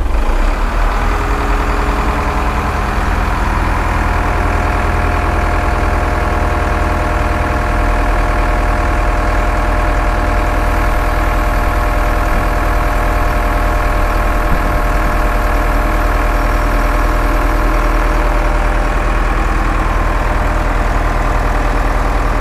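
Wheel loader's diesel engine running under load as its hydraulics lift a steel dump-truck bed on the forks. It revs up in the first couple of seconds, then holds a steady pitch.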